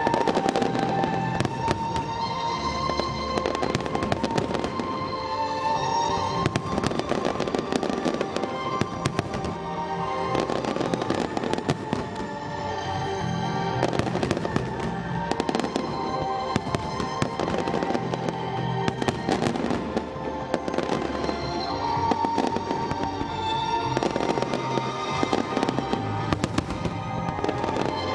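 Aerial firework shells bursting in quick succession throughout, over the music soundtrack that the display is set to.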